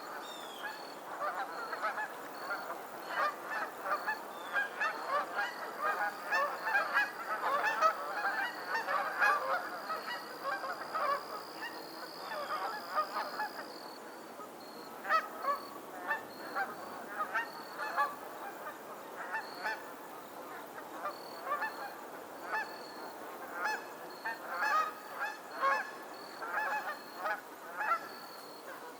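A flock of geese honking: many short, overlapping calls in a continuous chorus, busier in the first third and again near the end.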